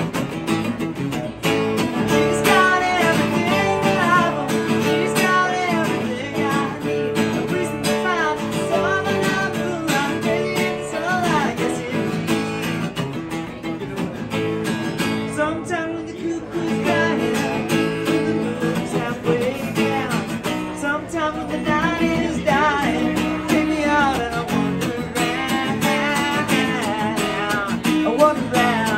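Live acoustic guitar strummed steadily in chords, with a single voice singing over it.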